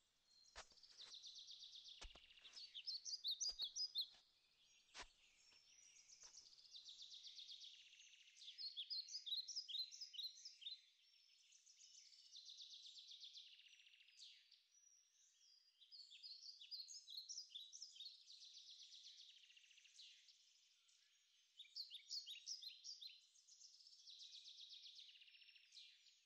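A songbird singing, repeating the same phrase five times, each a few seconds long and about five seconds apart: a quick trill that breaks into a run of short high notes. A few faint clicks come in the first few seconds.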